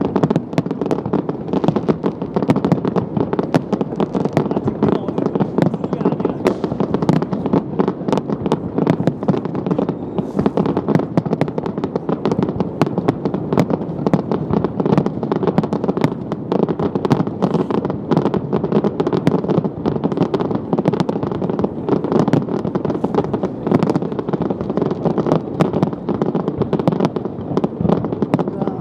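Fireworks display: a dense, unbroken barrage of bangs from shells bursting in quick succession.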